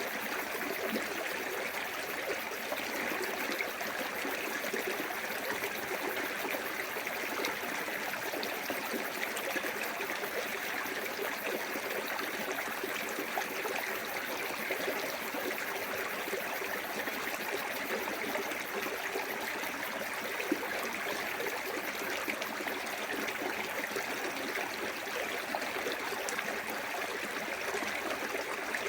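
Small waterfall on a clear woodland stream: steady rushing and trickling water with no pauses.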